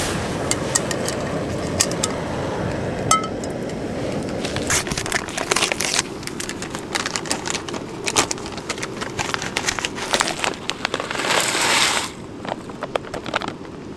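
Screw-on gas canister backpacking stove burning with a steady rushing hiss under a pot of water, with many small crackles and pops as the water heats. A packet crinkles over the pot near the end.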